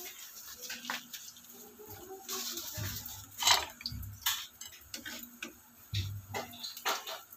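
Kitchen clatter: a few sharp knocks and clinks of utensils against cookware, the loudest about three and a half seconds in. Near the end, a wooden spatula scrapes and knocks in a non-stick frying pan as it is worked under a pancake.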